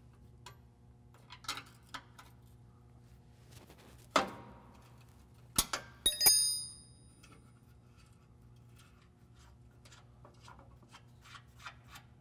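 Steel wrench working nuts off studs on a truck frame: scattered soft metal clicks, a sharper clack about four seconds in, and a bright ringing metal clink about six seconds in.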